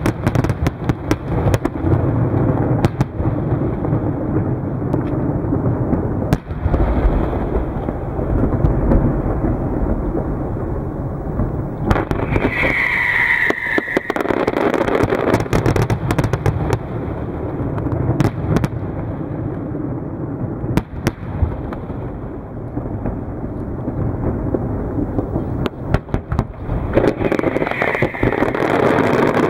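Fireworks display: a rapid, continuous barrage of aerial shell bangs and crackling over a steady low rumble, with a brief falling whistle a little under halfway through.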